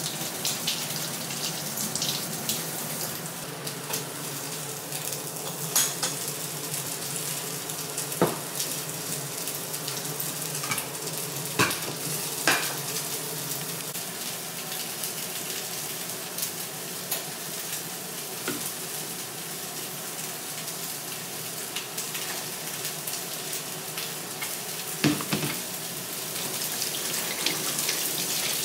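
Food sizzling steadily in a frying pan, broken by a few sharp clicks and clatters of kitchen utensils and dishes. Near the end a tap runs, water splashing over hands into a steel sink.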